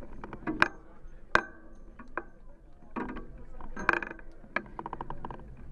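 Bicycle being wheeled along: its freewheel hub ticks in a quick even run of clicks near the end, among scattered sharp knocks and clinks from the bike, with people talking around it.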